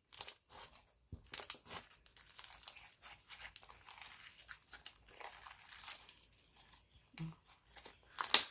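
Clear jelly slime with beads being stretched and squeezed by hand: irregular crackling clicks and small pops, with a louder pop near the end.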